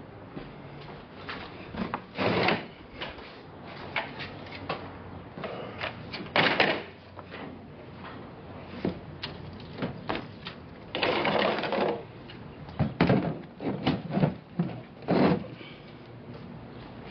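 Metal clanking and rattling of an expandable skate-wheel gravity conveyor being handled and pulled out. Scattered sharp knocks are broken by a few louder clattering stretches, the longest lasting about a second past the middle, and a run of heavy knocks near the end.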